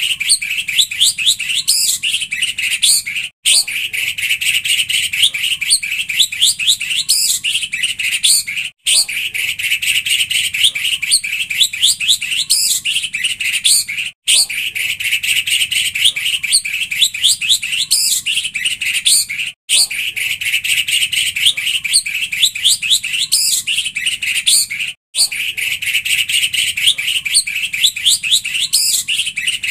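Looped recording of dense, rapid bird chirping and twittering, played as a lure track to get white-rumped shamas singing. The same few-second passage repeats about every five and a half seconds, each repeat ending in a sudden short break.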